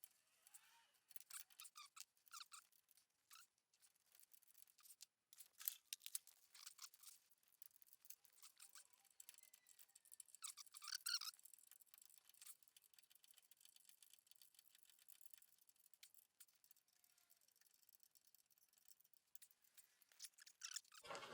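Near silence, broken by scattered faint metal clicks and short scrapes of bolts and hardware being handled and fitted, a little louder about 6 and 11 seconds in.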